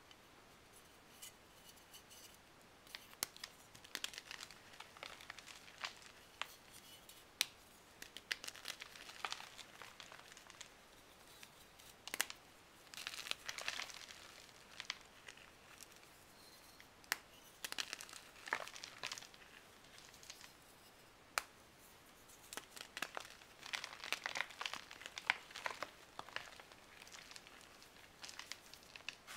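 Baked, cornstarch-coated floral foam being crumbled and crushed by hand: irregular bursts of dry, fine crackling and crunching with a few sharp snaps, and powdery rustling in between.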